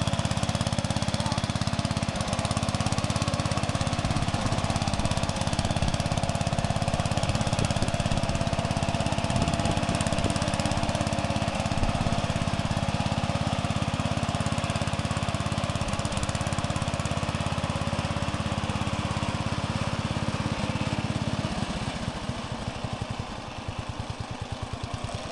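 Sears Suburban 12 garden tractor's Briggs & Stratton engine running steadily under load as it drags two spruce logs. Near the end the engine drops in level and its firing pulses become slower and more distinct.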